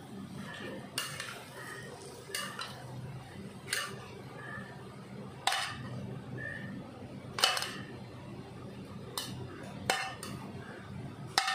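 A metal ladle scrapes and knocks against a steel wok as stir-fried tofu, tempeh and bean sprouts are pushed out onto a metal plate. It gives a series of about eight sharp clinks, one every second or two, with soft scraping between them.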